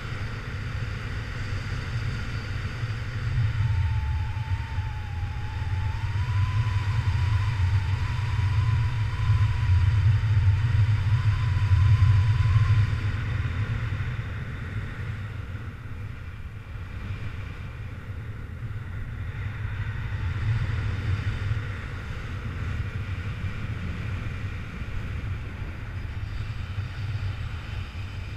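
Wind rushing over a camera microphone in paraglider flight: a steady low rumble, louder in the first half and easing off after about thirteen seconds. A faint wavering high tone runs through it from about four to twelve seconds in.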